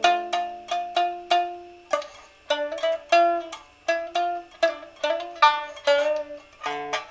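Solo instrumental improvisation: a melody of single notes, each struck or plucked sharply and dying away, about two to three a second, over lower held notes.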